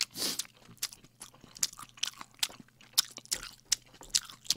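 Close-miked chewing of a mouthful of cream jjamppong noodles: irregular wet smacks and clicks of the mouth, several a second.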